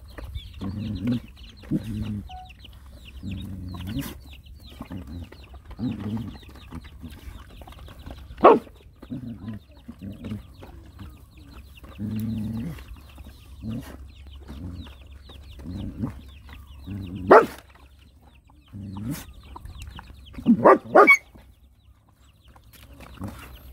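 A hen clucking in short low calls every second or two, broken by three sudden, sharp, louder sounds.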